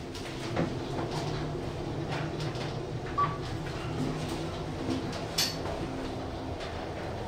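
Second-generation KONE EcoDisc machine-room-less traction lift car travelling up several floors: a steady ride hum from inside the car, with a few light clicks and knocks, the sharpest about five seconds in.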